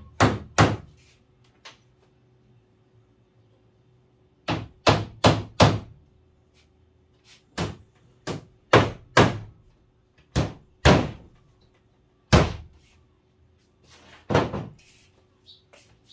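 Hammer striking the plywood counter top, about fifteen sharp blows in short bursts of one to four with pauses between, driving fasteners in.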